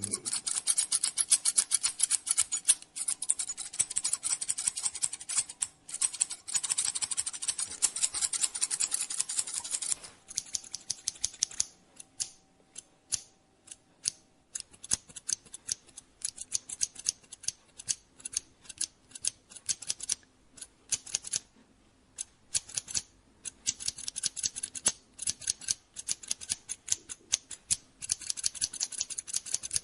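Barber's scissors snipping hair in quick runs of many crisp cuts, with a few short pauses between runs.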